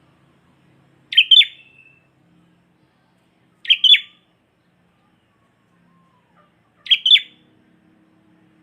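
Kutilang (sooty-headed bulbul) singing prenjak-style phrases: three short, sharp double-note calls spaced about three seconds apart, an imitation of the prinia's call in its song.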